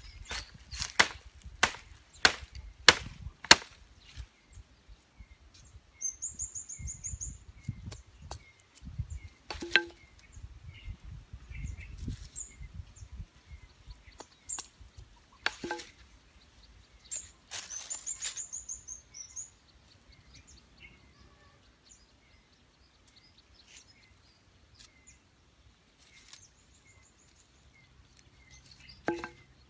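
A machete blade chopping and trimming a thin wooden stick: a quick run of sharp knocks in the first few seconds, then single strikes now and then. A bird sings short high trills in the background.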